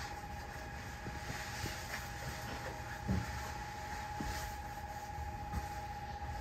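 Ichibata Electric Railway 7000-series electric railcar running at low speed just after departure, heard on board: a steady high whine from its electric traction drive over a low running rumble, with a few soft knocks from the wheels on the track, the clearest about three seconds in.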